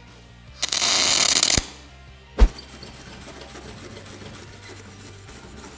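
A MIG welding arc on stainless steel crackles for about a second as a tack weld is struck, followed by one sharp knock. After that comes faint scratching of a stainless-steel bristle brush on the plate.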